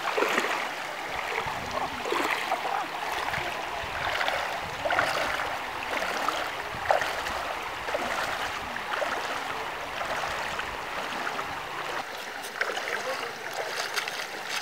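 Shallow river flowing over stones: a steady rush of moving water.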